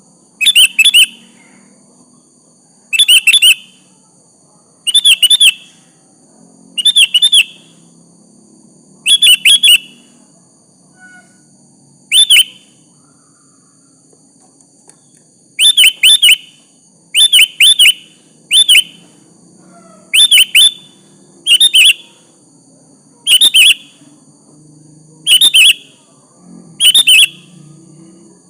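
Sooty-headed bulbul (kutilang) calling: short, loud bursts of two or three quick sharp notes, repeated every one to two seconds, with a pause of a few seconds about halfway through.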